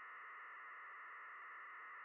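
Receiver audio from the QO-100 WebSDR tuned to the satellite's mid-beacon: a faint, steady band of hiss with a faint steady tone in it.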